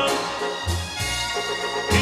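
Background music: the instrumental accompaniment of a pop song about the sea, sustained chords over a bass line, in a short gap between sung lines.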